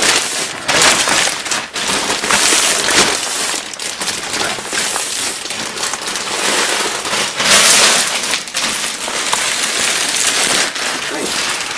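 Clear plastic bag crinkling and rustling loudly as it is handled, a dense crackling that keeps going with small swells.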